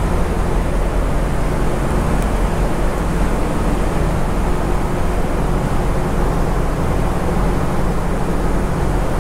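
Loud, steady rumble and roar of engines and machinery aboard a car ferry, with a low, even hum and no changes in pitch.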